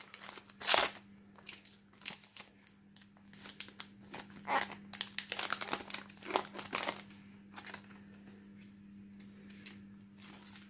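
Foil wrapper of a trading-card booster pack crinkling in irregular crackles as the pack is opened by hand and the cards are pulled out. The crinkling thins out after about seven seconds.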